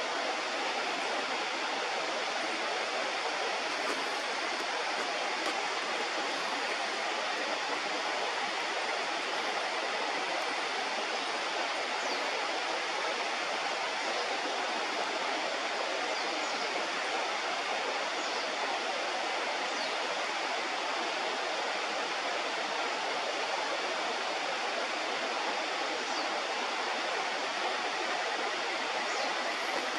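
River water rushing steadily, a constant, unchanging noise of flowing water.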